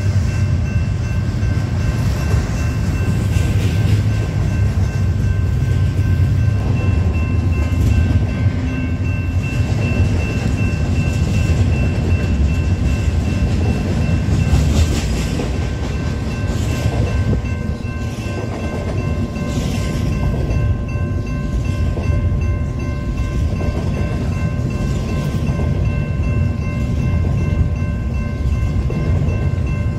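Union Pacific double-stack intermodal freight train passing through a grade crossing: a steady low rumble of cars with wheels clattering over the rails, while the crossing's warning bell rings continuously on top.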